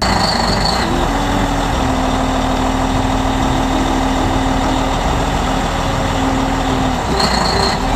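Wheel loader's heavy engine running steadily, cutting in suddenly, with a steady low hum through most of it.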